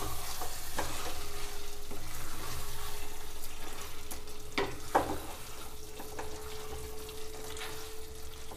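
Mutton pieces in spiced mustard oil sizzling in a steel kadhai as a wooden spatula stirs and scrapes them through the masala. Two sharp knocks of the spatula against the pan come about halfway through. A faint steady hum runs underneath.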